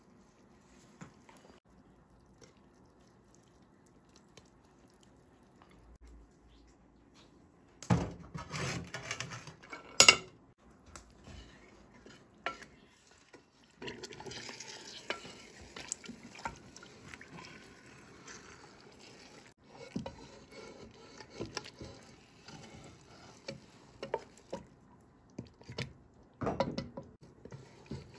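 Wooden spoon stirring and scraping inside a metal pressure cooker of stew, with scattered knocks against the pot. About ten seconds in there is a loud clank of metal cookware.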